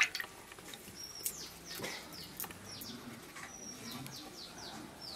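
Small birds chirping: repeated short, quick downward-sliding chirps, several in a row around the middle, with a thin steady whistle now and then. A brief splash of water at the very start.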